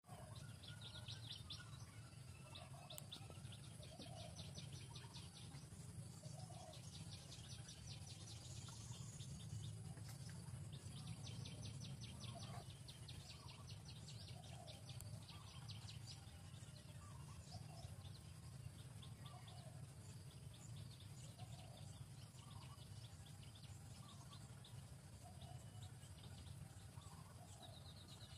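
Faint forest ambience of birds calling: a short, low note repeating about once a second, and bouts of rapid, high trills, over a steady low hum.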